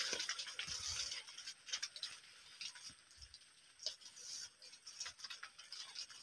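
Faint, irregular light clicking and ticking.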